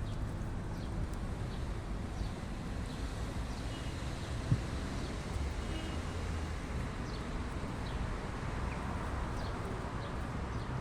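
Kittens play-fighting, their paws making faint scattered light taps and scuffles, with one sharper knock about four and a half seconds in, over a steady low background hum.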